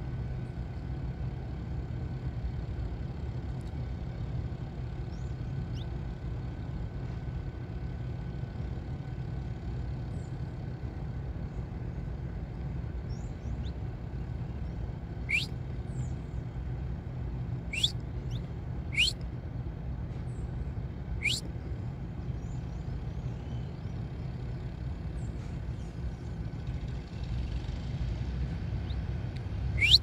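Saffron finches giving short, sharp upward-sweeping chirps: four spaced calls around the middle of the stretch and a loud one at the very end, with fainter bird notes scattered between. A steady low traffic rumble runs underneath.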